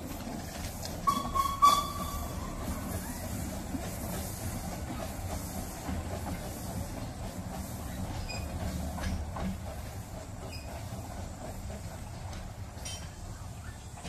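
Narrow-gauge steam-hauled passenger train rolling away over the rails with a steady low rumble. A brief high squeal comes a second or two in.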